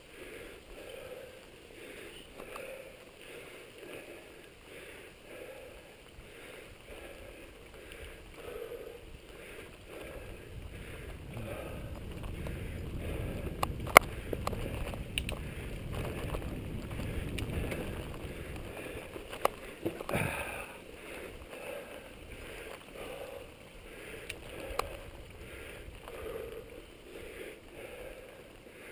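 Mountain bike rolling along a dirt singletrack, with a soft rhythmic pulse about once a second. A louder low rush builds in the middle, and a few sharp clicks and rattles come from bumps, the loudest about 14 and 20 seconds in.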